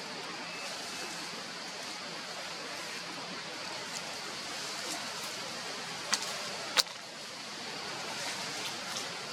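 Steady outdoor hiss, with two sharp clicks a little after six seconds in and about seven seconds in, the second the louder.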